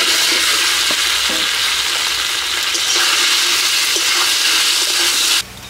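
Boiled taro corms (kochur mukhi) sizzling loudly as they go into hot mustard oil in a wok and are stirred with a spatula. The sizzle cuts off suddenly near the end.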